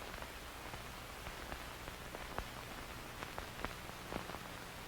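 Faint steady hiss and low hum, with scattered soft ticks and clicks.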